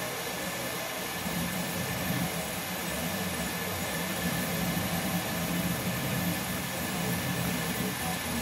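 Up! Mini 3D printer running mid-print: a steady fan whir with a low motor hum from the stepper motors that swells and fades as the extruder head moves.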